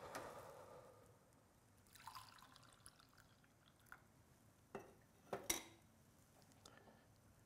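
Coffee poured faintly from a glass carafe into a ceramic mug, followed a little over halfway through by a few sharp clinks as the carafe and mug are set down.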